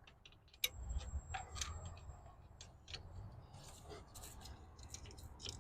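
Faint, irregular clicks and light metal taps of hand tools working a stubborn spark plug loose from its well.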